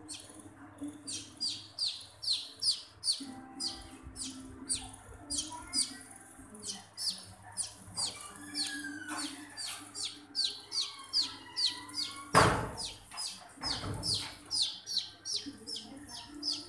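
A baby chick peeping over and over, rapid high peeps about three a second, each falling in pitch. Two dull thumps come about twelve and fourteen seconds in, the first the loudest sound here.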